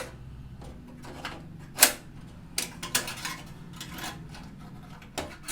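Scattered sharp clicks and light metal knocks from handling the rear expansion-slot covers of a desktop PC case, about half a dozen in all, the loudest about two seconds in, over a faint low hum.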